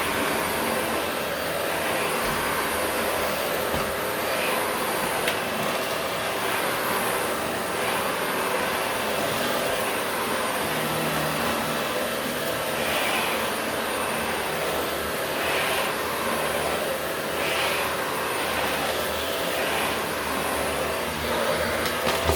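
Vacuum cleaner running steadily on carpet, its hiss swelling briefly every couple of seconds as it is worked back and forth.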